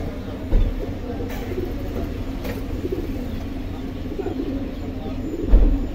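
Domestic pigeons cooing, a steady run of low rolling coos. Two brief low thumps, one about half a second in and one near the end.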